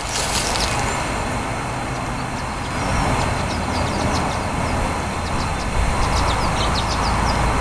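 Wind rumbling steadily on the microphone, heaviest near the end, with light crunching of footsteps on wood chips.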